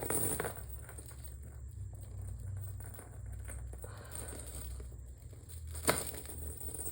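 Faint rustling and light clinks of tangled costume jewelry being handled and sorted by hand, with one sharp click about six seconds in, over a low steady hum.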